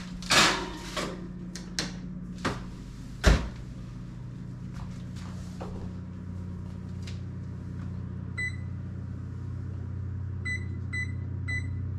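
Knocks and clatter from loading and closing a kitchen oven, the loudest a thump about three seconds in, then short high electronic beeps from the oven's keypad as it is set: one about eight seconds in and a quick run near the end. A steady low hum runs underneath.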